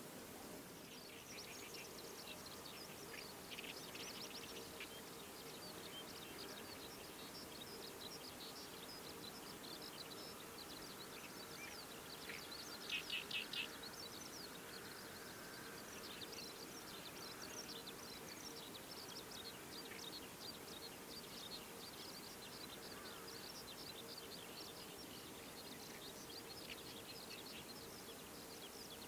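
Small birds chirping and twittering in many short high notes, with a quick run of four louder notes about halfway through.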